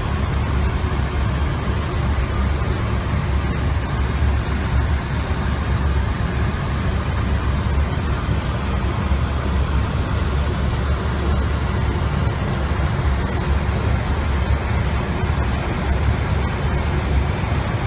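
Steady rumble and rush of an airliner's interior in cruise flight: airflow and engine noise at a constant level, with no change in pitch.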